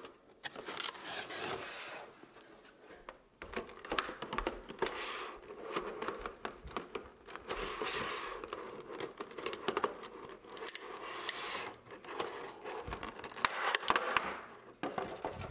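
Unboxing a prize figure: a cardboard box being opened and plastic packaging handled, with crinkling, rustling and scraping broken by many small clicks.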